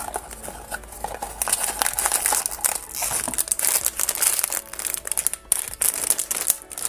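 Foil blind-box bag crinkling in the hands and being torn open: a dense run of sharp crackles.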